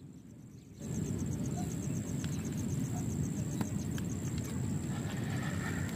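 Fast, even clicking of a spinning fishing reel over a steady low wind rumble on the microphone, both starting about a second in. A sharp swish comes right at the end.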